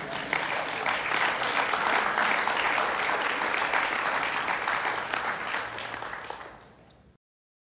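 Concert audience applauding, a dense steady clapping that thins out near the end and then cuts off suddenly.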